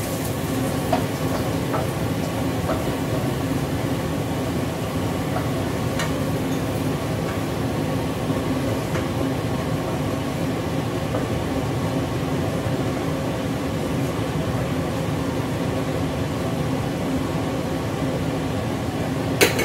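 Garlic frying in oil in a wok, a steady sizzle over a constant low hum, with a few light taps of a wooden spatula against the pan and a sharper knock near the end.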